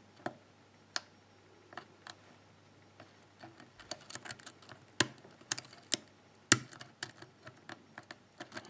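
Lock pick clicking against the pins of a pin-tumbler cylinder under tension: irregular sharp metallic clicks and ticks, the loudest a little after five and six and a half seconds in. The pins include serrated pins that are binding hard.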